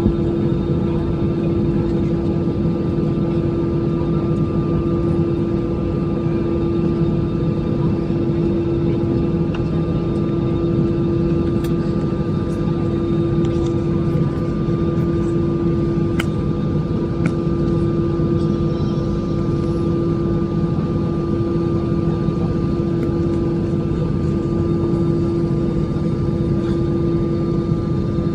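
Airplane engines running steadily: a constant drone with a steady hum and a thinner high tone above it, holding level without rising or falling.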